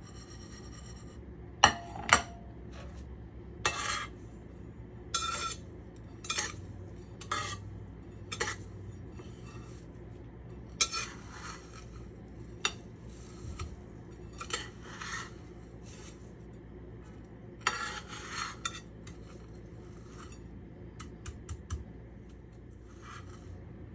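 Kitchen utensils and dishes clinking and scraping at irregular intervals, with two sharp clanks about two seconds in, over a steady low hum.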